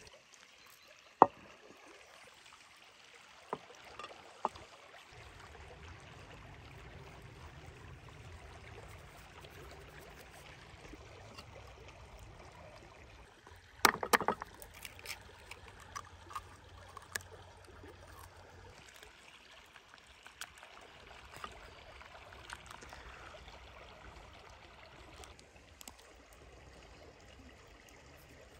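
A stream running steadily, with scattered small clicks and handling knocks. A sharp click about a second in, and about halfway through a quick cluster of loud sharp knocks: an egg being cracked against a wooden board.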